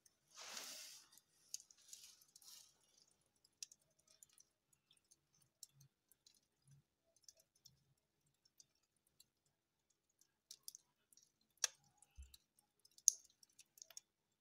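Faint, sparse crackles and pops from a wood-stove fire burning on embers, with a brief hiss about half a second in and two sharper pops near the end.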